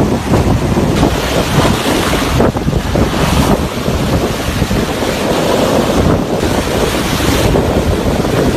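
Surf breaking and washing over sand and against rocks, with wind buffeting the microphone as a low rumble. The spray swells louder twice, about three and seven seconds in.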